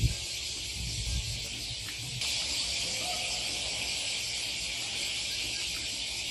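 A steady, high-pitched chorus of insects that gets louder about two seconds in, with low rumbles on the microphone.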